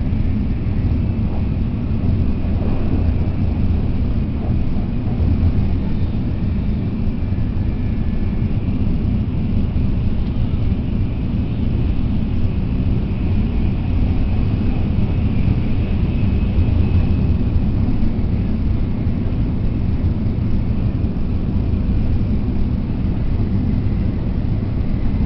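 Tokaido Shinkansen train heard from inside the passenger car, running at speed: a steady, deep running noise with a faint high whine above it.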